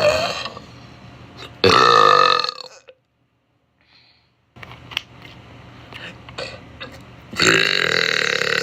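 A woman burping: a short burp right at the start, then two long, loud, drawn-out burps, one about two seconds in and another near the end.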